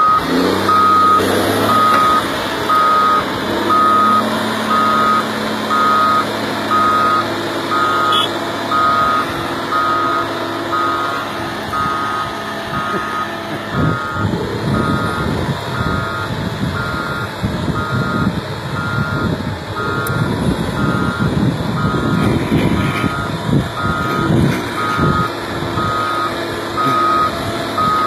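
Caterpillar 12M motor grader's reverse alarm beeping steadily about once a second, the sign that the machine is backing up, over its diesel engine running. From about halfway a rougher low rumble grows under the beeps.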